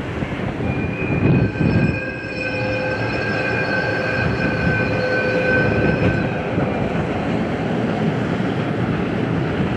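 A train running past on the rails with a steady rumble. From about half a second in to about six seconds, a high drawn-out tone rides over it.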